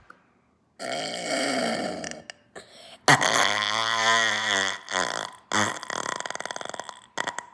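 A person sucking air in through the mouth for about a second and a half, then a long, loud, low-pitched burp about three seconds in, followed by a few shorter crackly burp sounds. The burp is voluntary, brought up from air swallowed on purpose.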